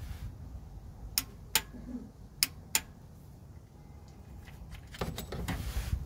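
Ratchet and 24 mm deep socket on a gearbox reverse light switch: four sharp metallic clicks in two pairs, then a jumble of metal clinks and rattling near the end as the tool is taken off the switch.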